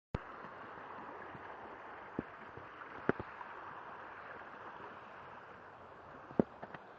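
River water running steadily, with a handful of sharp clicks over it.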